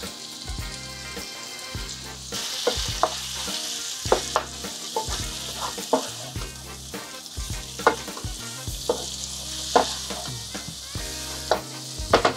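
Chicken thigh pieces sizzling in hot oil in a pot, with sharp knocks against the pot every second or two as they are stirred. The sizzle gets louder about two seconds in.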